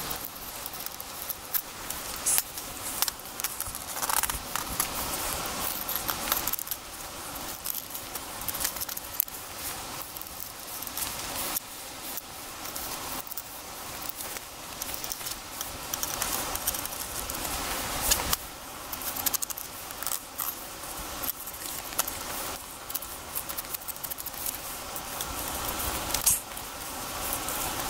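Kitchen knife cutting and scraping as a flounder is filleted and skinned for sashimi on a stainless-steel tabletop: irregular scrapes and small clicks of the blade and fish against the metal.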